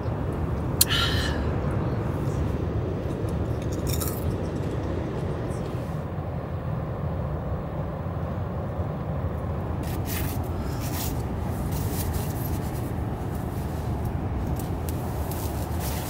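A steady low drone throughout, with a sharp knock about a second in as a drink can is set down, then a few soft rustles and clicks of hands handling things.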